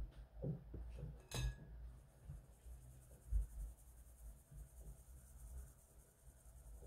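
Sugar being shaken through a stainless steel mesh sieve into a glass bowl: a faint, steady rustling hiss of the grains passing through the mesh, with a few light knocks and one sharp clink of the sieve against the bowl about a second and a half in.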